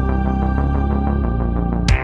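Synth background music with a steady pulsing beat and sustained chords, with a sharp swept hit near the end.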